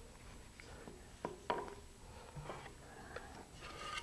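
Faint clicks and taps of a wooden stir stick against a small plastic cup while liquid epoxy is mixed, with two sharper clicks a little over a second in. Near the end, rustling and knocking as the cup is set down and the nose cone is picked up.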